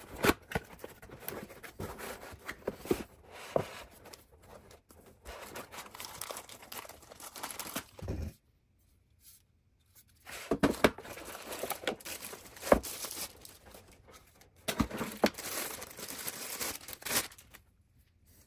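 Unboxing a small network switch: cardboard box and plastic packaging rustling, crinkling and tearing, with light knocks as parts are handled. It comes in bouts, with a pause of about two seconds a little before halfway.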